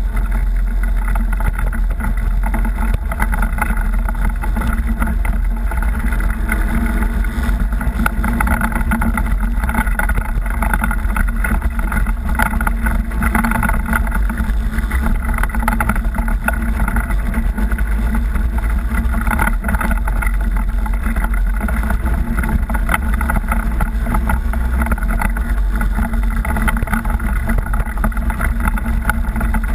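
Engine of an off-road vehicle running steadily while it crawls over a rocky trail, heard as a constant low rumble.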